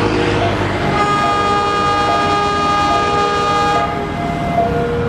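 Diesel locomotive horn blowing one long blast, starting about a second in and lasting nearly three seconds, over the rumble of a passing passenger train. Lower steady tones that step in pitch sound underneath throughout.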